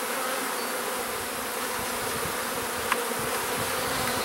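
Many honey bees buzzing around an open hive, a steady hum, with one small click about three seconds in.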